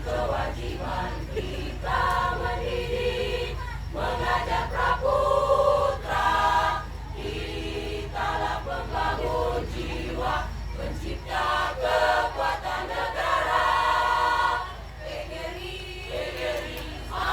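Choir singing together in sustained phrases, a second or two each, with short breaks between them.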